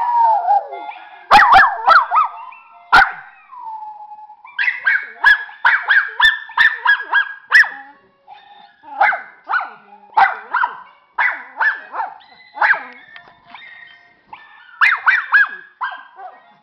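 Schnauzer singing: a long falling howl, then a run of short pitched yelping howls at about two a second, spacing out toward the end.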